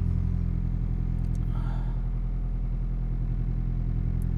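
Toyota Avensis 2.0-litre four-cylinder petrol engine idling steadily on its raised fast idle, a little over 1,000 rpm, moments after a cold start at −11 °C, heard from inside the cabin.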